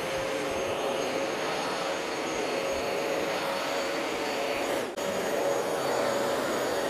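Bissell ProHeat 2x Revolution Pet Pro upright carpet cleaner running on its max clean setting: a steady suction whine and rush of air, briefly dipping about five seconds in.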